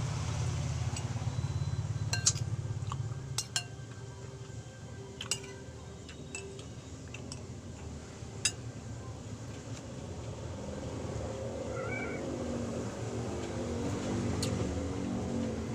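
A cat meowing, with cutlery clinking against a plate a few times in the first half.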